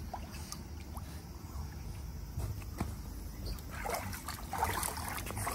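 Water splashing and sloshing in a shallow inflatable paddling pool as a hand splashes toward a wading dog, starting about four seconds in, over a low steady rumble.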